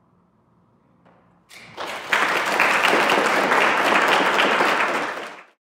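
Audience applauding: the clapping begins about a second and a half in, quickly builds to full strength, and cuts off suddenly near the end.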